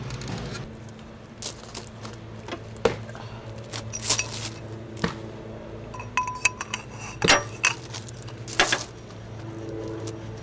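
Metal tools and parts clinking and clanking, a dozen or so sharp separate knocks and taps over a steady low hum.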